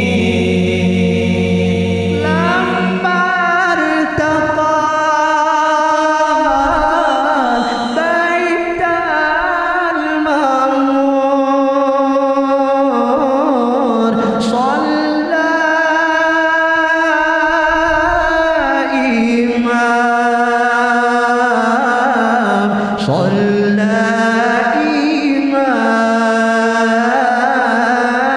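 Male voices chanting an Arabic dhikr (zikir) unaccompanied, in long held, ornamented lines that slide between notes, amplified through microphones and a sound system.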